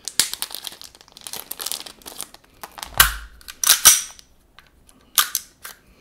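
Small clear plastic parts bag crinkling as it is opened and the slide lock lever is taken out, then a few sharp clacks of handling as the airsoft pistol is picked up off the table.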